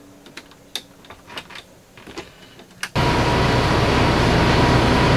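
A few light clicks of cab switches, then about three seconds in a loud, steady rushing hiss with a low rumble under it starts suddenly: the Kenworth T680's air suspension being dumped to lower the truck.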